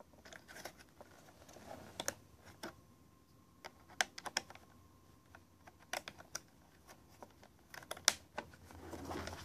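Light plastic clicks and taps of a Tandy Portable Disk Drive 2's battery compartment cover being opened and snapped shut, with fingers handling the drive's plastic case.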